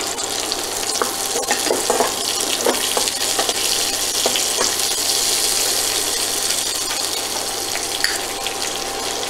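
Chopped onions frying in hot oil in a metal kadai: a steady sizzle, with a metal spatula scraping and tapping against the pan now and then as they are stirred.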